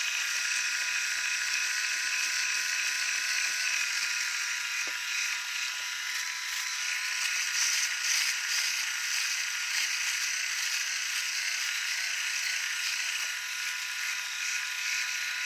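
ENCHEN Blackstone 3 three-head rotary electric shaver running while it is moved over the cheek and chin, cutting stubble. It makes a steady whine over a high hiss.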